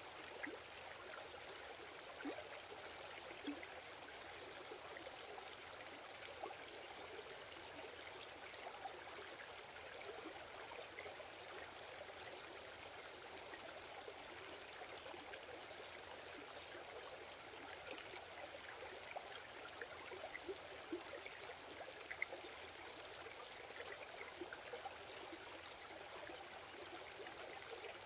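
Faint, steady outdoor ambience: an even hiss with scattered small ticks and a thin, steady high tone throughout.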